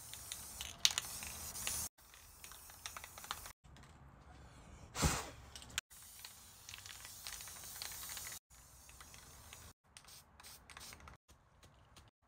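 Aerosol spray paint cans hissing in short spurts, with sharp clicks and taps between them, chopped by abrupt cuts. A brief louder rush comes about five seconds in.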